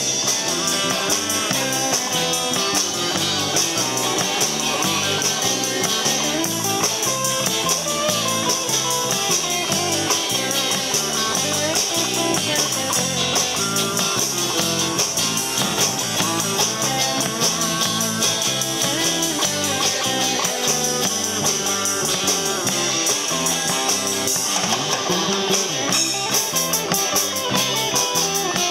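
Live rock and roll band playing through amplifiers: two electric guitars, an electric bass and a drum kit, with a steady beat.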